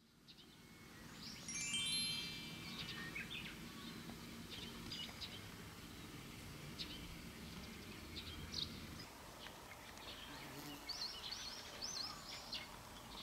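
A chime run of quick tones stepping downward about a second and a half in, then small birds chirping and calling on and off over a low steady background hum that eases off about nine seconds in.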